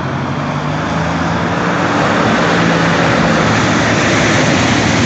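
Jeep Wrangler TJ's engine held at high revs under load, its pitch nearly steady, under a loud rushing noise.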